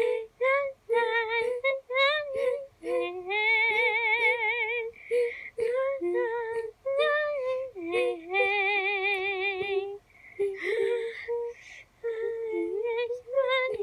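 A high-pitched cartoon voice singing wordless notes, mostly short ones, with two long held notes wavering in vibrato, played back through computer speakers.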